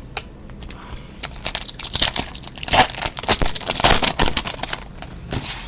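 Foil wrapper of a football trading card pack being torn open and crinkled by hand. A dense run of crackling starts about a second in, is loudest in the middle, and dies away near the end.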